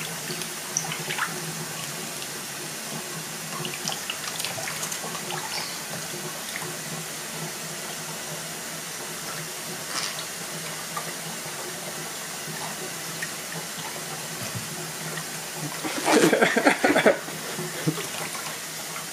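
Water poured from a plastic cup in a thin stream into a shallow tub of water, trickling and splashing steadily over a bathing African grey parrot. About sixteen seconds in comes a short, much louder burst of splashing.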